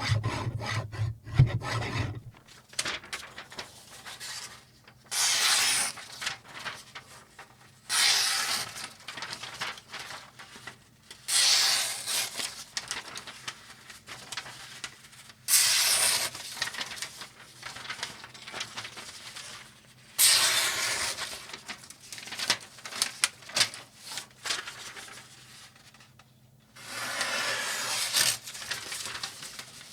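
Knife blade scraping across a sharpener in a series of long strokes, each one to two seconds long, with lighter scratching between them.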